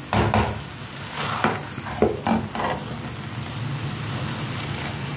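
A spatula stirring and scraping grated beetroot and meat masala around a frying pan, with the food sizzling: about seven scraping strokes in the first three seconds, then a steadier sizzle.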